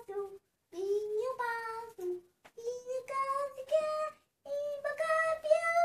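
A young boy singing a song about the animals, in high, drawn-out notes, with a few sung phrases separated by short breaks.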